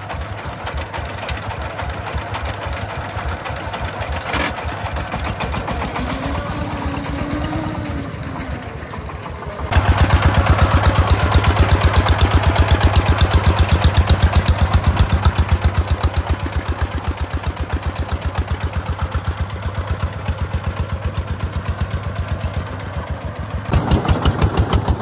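Single-cylinder diesel engine of a homemade công nông truck running with a steady, evenly pulsing chug. About ten seconds in it becomes much louder, heard close beside the open engine.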